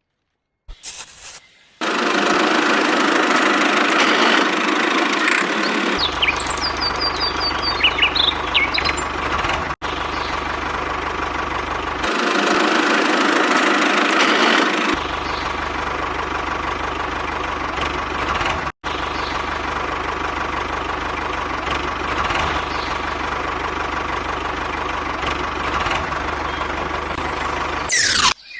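Steady engine-like running noise from a small vehicle, edited into several segments that switch abruptly, some with more low rumble than others. Near the end it cuts out with a quick falling swish.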